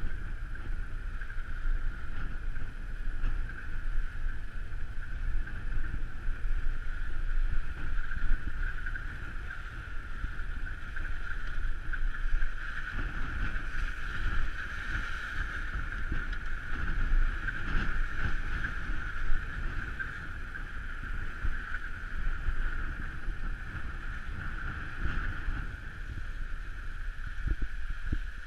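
Car driving on a snow-packed road, heard through a camera mounted outside on the bonnet: wind buffeting the microphone over a low rumble of engine and tyres, with a steady high whine throughout.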